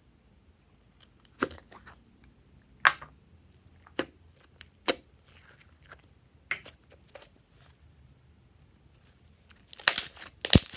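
Blue slime being taken out of a plastic toy container and squeezed by hand: a handful of separate sharp sticky pops and clicks, then a quick run of crackling squelches near the end as it is kneaded.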